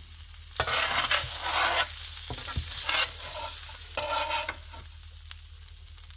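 Metal spatula scraping across a non-stick electric griddle in several strokes, with a few sharp taps, while the cheesesteak meat and vegetables sizzle.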